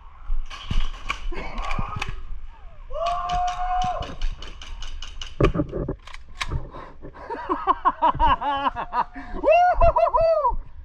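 Airsoft guns firing: a quick string of sharp pops about three seconds in and scattered single shots, with players yelling and shouting over them.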